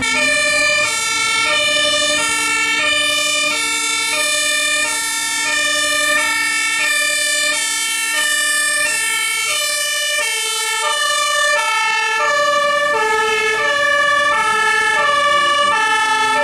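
Iveco Magirus HLF 20/16 fire engine's two-tone siren (Martinshorn) sounding loudly, alternating high and low tones in steady turn. It comes on suddenly right at the start.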